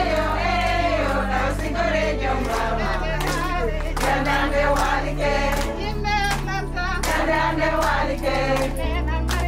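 Music: voices singing over sustained bass notes that shift every few seconds, with a steady percussive beat.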